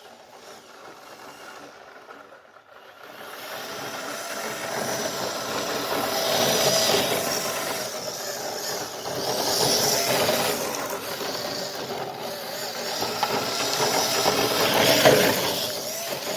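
Electric motor of a radio-controlled truck on a 3S battery, winding out at high revs with a whine and hiss, swelling and easing several times after a quiet first few seconds.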